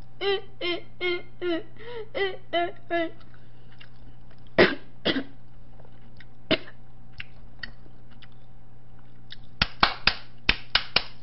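Hand clapping, quick and sharp at about five claps a second, starting near the end. It comes after a run of short pitched vocal syllables in an even rhythm in the first three seconds and a couple of isolated sharp sounds around the middle.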